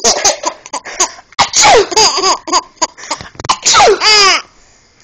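A baby laughing in bouts of giggles at someone's repeated sneezes. Two loud 'achoo!' sneezes come, one about a second and a half in and another past the middle.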